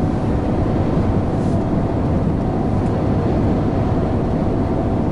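Steady drone inside a lorry's cab while cruising on the motorway: engine and road noise, heaviest in the low range, with a faint steady whine.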